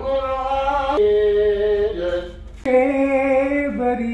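A poem sung or chanted by a single voice in long held notes that step up and down in pitch, with a short break about two seconds in.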